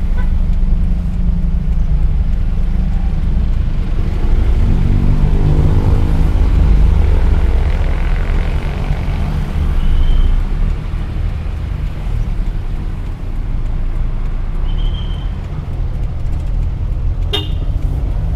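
Engine and road noise of a 1984 Daihatsu Hijet 1000 heard from inside its cab while driving. The engine note rises as it accelerates from about four seconds in, then eases off. A brief high toot comes near the end.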